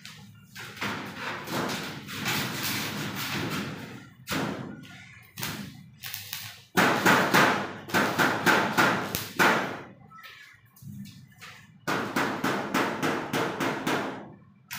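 Stick (electrode) arc welding on thin galvanised iron, the arc crackling and sizzling in about five bursts of one to three seconds each with short gaps between, as the welder strikes, runs and breaks off short welds.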